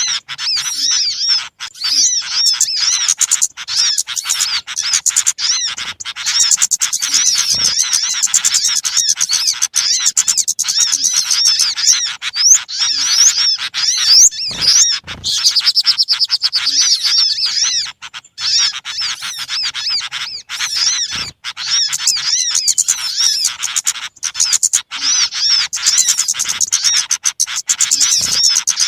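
Many small birds chirping and twittering all at once, a dense, noisy chatter of high calls with no pauses. It is a bird-lure recording, played to draw small birds in.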